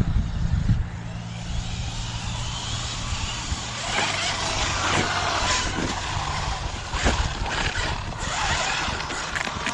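Losi Super Baja Rey large-scale electric RC truck driving, its brushless motor and tyres surging and easing off as it is throttled, with a few sharp knocks.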